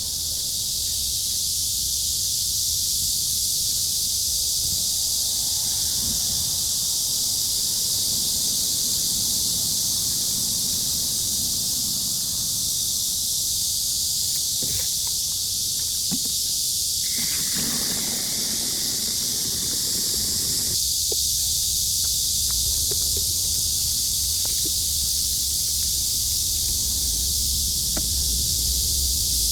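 A steady, high-pitched chorus of cicadas, with a low rumble underneath.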